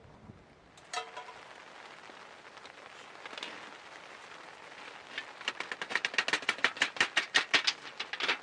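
Campfire crackling and popping, the cracks coming thick and fast in the second half, after a single metallic clink about a second in.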